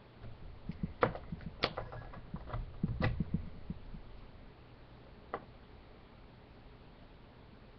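Zippo lighter being flipped and handled: a quick series of sharp metal clicks and clacks from its hinged lid and case, thickest in the first four seconds, with one more click about five and a half seconds in.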